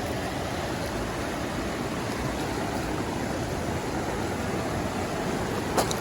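Steady rushing of a mountain stream at a fishing hole, with one sharp click near the end.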